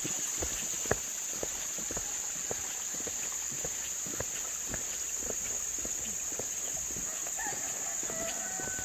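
Steady high-pitched chirring of insects, with scattered light knocks throughout and the sharpest one about a second in.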